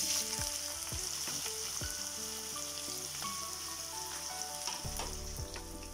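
Chopped onions dropped into hot oil in a non-stick kadai, sizzling. The sizzle starts suddenly as they land and runs on steadily, with soft background music beneath it.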